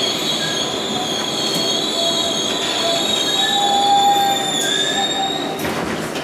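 R142A subway train braking into a station, heard from inside the car: a steady high-pitched squeal over the running rumble, which stops near the end as the train slows almost to a halt.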